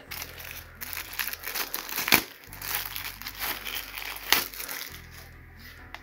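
Plastic wrapping crinkling and rustling as a handheld network cable tester still sealed in its plastic bag is handled, with a few sharp clicks.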